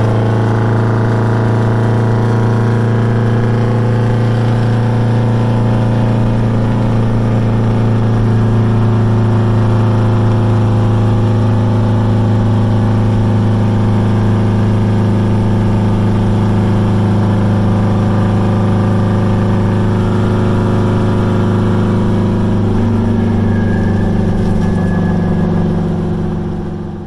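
Heavy truck's V8 diesel engine running steadily while driving, heard inside the cab. Its note shifts slightly a few seconds before the end, and the sound fades out at the very end.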